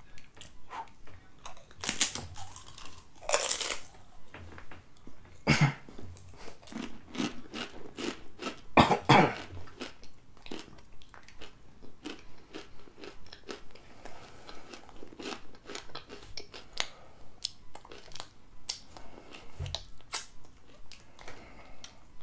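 Crunching chewing of a Paqui One Chip Challenge tortilla chip, with many small crunches and a few louder bursts, the loudest about nine seconds in.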